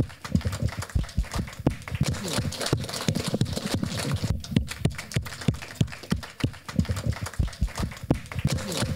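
A small audience getting up and moving about after a talk: rapid, irregular knocks and low thumps, several a second, with murmured conversation underneath.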